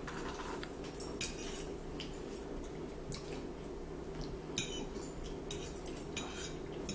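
Metal fork clinking and scraping against a plate of macaroni, a few scattered clicks with the sharpest about four and a half seconds in, over a low steady hum.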